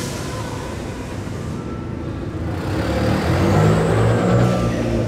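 Car engines running as cars drive slowly past inside a concrete parking garage. The engine sound swells louder about three seconds in as a second car passes close by.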